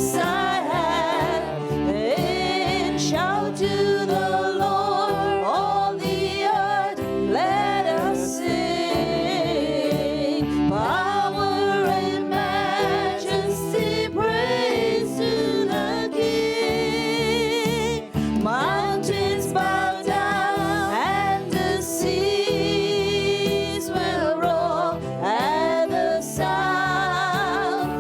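Gospel worship music: voices singing a slow, wavering melody over held chords, with a steady beat underneath.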